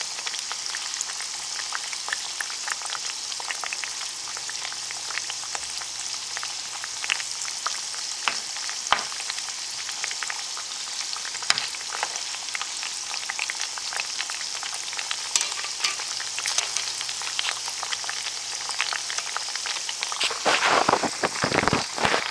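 Sweet potato fries frying in hot canola oil in a pan: a steady sizzling hiss scattered with small pops and crackles, briefly louder near the end.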